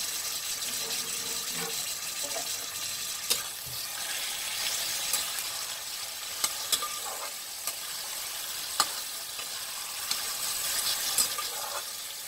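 Yogurt-marinated chicken pieces sizzling in hot oil with onions and whole spices in a kadhai, a steady frying hiss with a few sharp clicks now and then.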